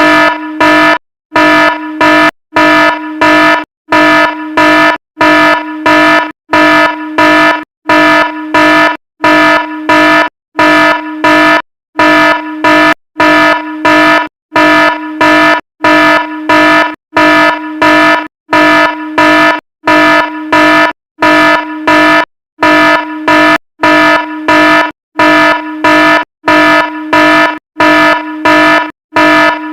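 Fire alarm horn sounding in a steady train of short blasts, about one a second, each loudest at its start.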